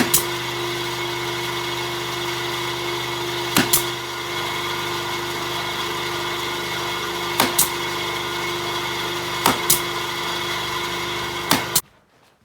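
Nail gun pinning roof battens, firing in quick pairs of sharp shots five times, every two to four seconds, over a steady machine drone that stops abruptly near the end.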